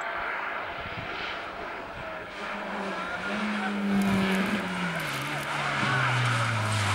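SEAT Ibiza hillclimb race car's engine running hard as it takes a bend and drives close past. It is louder from about four seconds in, and its pitch drops a little after five seconds.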